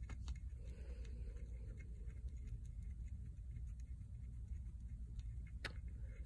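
Faint small metal clicks and ticks as fingers work the nut and throttle-arm pieces on a carburetor, with one sharper click near the end, over a low steady hum.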